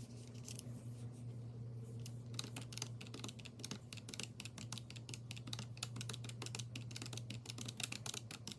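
Calculator keys being tapped in quick runs of clicks as a column of budget figures is added up. A faint steady low hum sits underneath.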